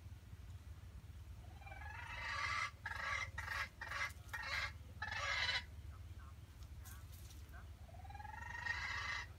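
A junglefowl rooster crowing: a long, broken crow that starts about one and a half seconds in, then a second crow that rises in pitch near the end.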